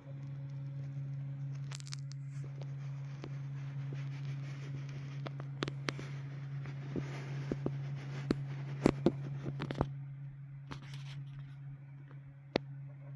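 Handling noises: a run of sharp clicks, taps and scraping, loudest about nine seconds in, over a steady low machine hum.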